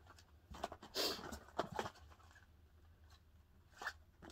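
Packaging and small cardboard product boxes rustling and knocking as they are handled, in a few short rustles about a second in and one more near the end, over a faint steady low hum.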